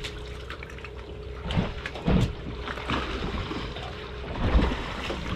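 Water splashing and sloshing against a boat, in irregular surges, over a low steady hum.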